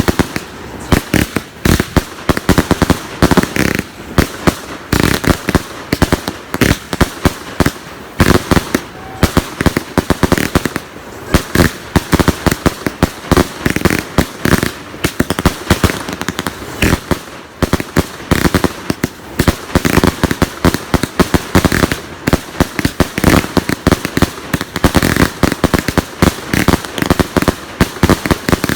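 Fireworks going off in a long, rapid barrage of loud cracking reports, several a second, with no pause.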